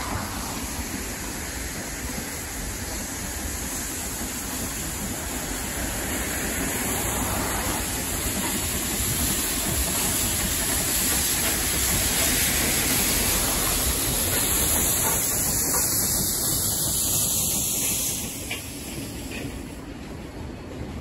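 Steam locomotive Y112, a Victorian Railways Y-class 0-6-0, running with a passenger train: a dense, steady hiss that builds through most of the stretch and drops off sharply near the end.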